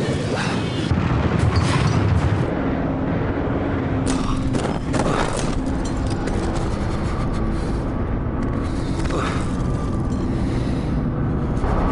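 Loud dramatic film soundtrack: a heavy, continuous low rumble with some music underneath, and deep booming hits about four to five seconds in and again around nine seconds.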